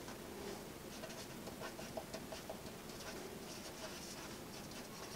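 Pen writing on paper: faint, irregular scratching strokes as words are written out by hand.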